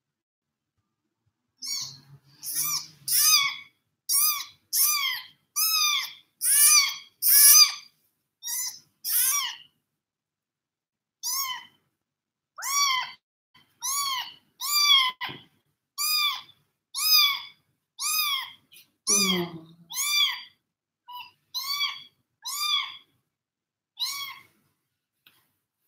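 A young kitten mewing over and over, about one high-pitched cry a second, each rising then falling in pitch, with a short pause about ten seconds in and one lower, drawn-out cry near the end.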